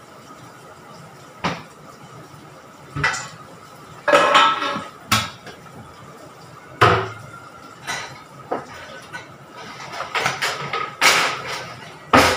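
Kitchen clatter: scattered knocks and clinks of pots, pans and utensils being handled, a dozen or so sharp hits, some in quick clusters, over a faint steady tone.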